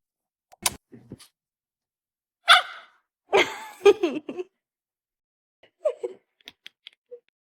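A dog vocalizing: a short, noisy burst about two and a half seconds in, then a longer vocal sound that bends up and down in pitch for about a second, followed by a few faint small sounds and clicks near the end.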